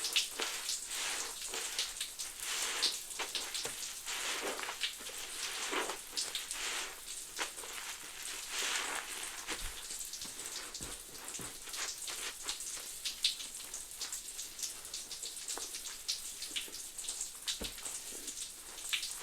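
Soapy suds of Fabuloso cleaner and Mr. Bubble bubble bath crackling in a squeezed sponge: dense, irregular popping and fizzing like light rain, swelling every second or two with each squeeze.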